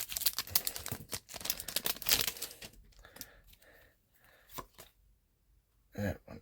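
A Japanese Pokémon TCG booster pack's foil wrapper is torn open and crinkled, with dense crackling for about the first three seconds. It then thins to a few faint rustles.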